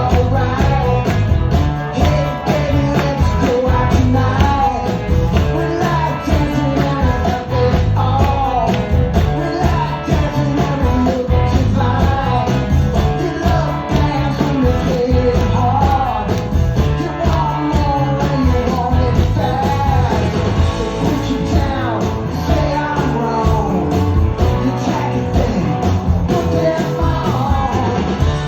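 Rock band playing live, with guitar, bass, drums and singing.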